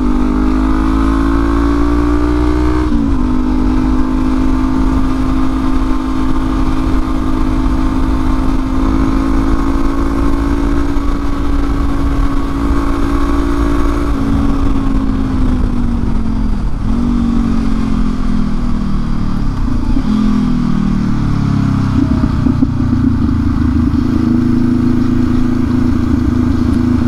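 Motorcycle engine running under way. Its note climbs and then drops sharply about three seconds in, holds steady for a long stretch, falls away from about fourteen seconds as the bike slows, and settles into a steady note again after about twenty-two seconds.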